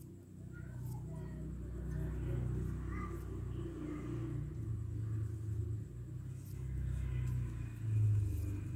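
A low rumble that swells over the first two seconds, wavers, and peaks briefly near the end.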